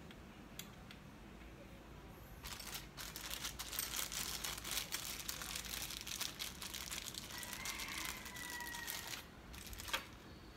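A plastic bag crinkling and rustling for several seconds as it is handled, then a light click near the end.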